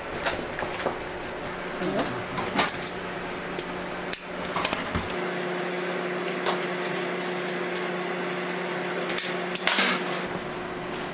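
Metal blade and gloved hands working candy slabs on a work table: scattered knocks, clicks and scrapes, with a longer scrape near the end. A steady low hum runs underneath.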